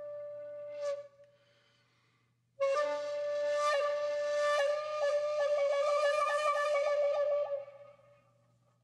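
Background music: a flute-like wind instrument playing long held notes. It breaks off about a second in, comes back after a pause and goes into a quick trill before fading out.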